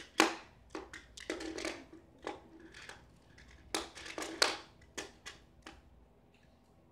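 A run of sharp clicks and knocks with a short rustle among them, the two loudest near the start and about four and a half seconds in, dying away about six seconds in.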